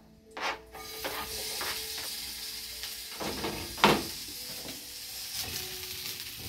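Sliced onion dropped into hot olive oil in a frying pan, starting a steady sizzle under a second in. A few sharp knocks of the spatula on the pan as the onion is stirred, the loudest a little after halfway.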